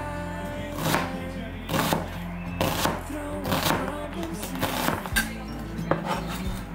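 A kitchen knife chopping onion on a cutting board, the blade knocking against the board about once a second, over background music.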